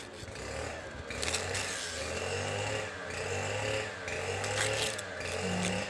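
A motor drones steadily, its sound swelling and dipping about once a second. Crisp leaf rustles come a couple of times as a banana leaf is unrolled by hand.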